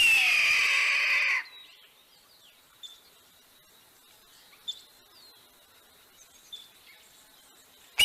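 Red-tailed hawk's scream, played from a recording: one long scream falling in pitch, lasting about a second and a half. Faint scattered chirps follow.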